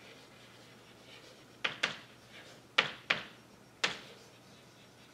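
Chalk writing on a blackboard: about five sharp taps of the chalk striking the board, with faint scratching between them.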